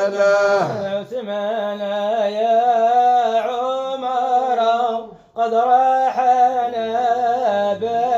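A male voice sings an Islamic madha (praise song) unaccompanied, holding long wavering, ornamented notes with no clear words. It breaks off briefly for a breath about five seconds in.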